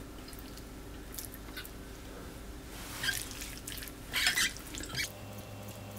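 Small amount of sake poured over raw peeled shrimp in a glass bowl, then the wet shrimp stirred. The result is a few soft wet splashes and squelches, the loudest about four seconds in.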